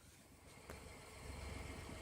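2015 Ford F-150 Ti-VCT V6 engine running, faint at first and growing louder over the second.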